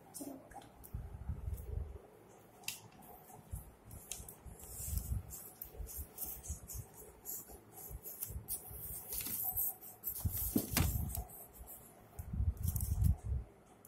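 Handling noise as small plastic toys and the phone are moved about: irregular low bumps and rustles with a few light clicks.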